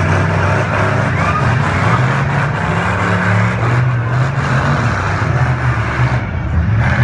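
Demolition derby cars' engines running loud, their pitch shifting up and down as the drivers rev.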